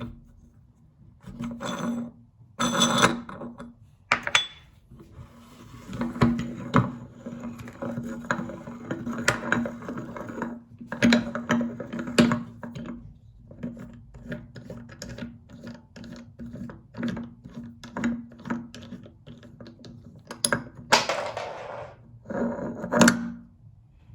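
Meat grinder working through a load, with irregular clicks, knocks and scraping throughout and louder stretches about three seconds in and near the end.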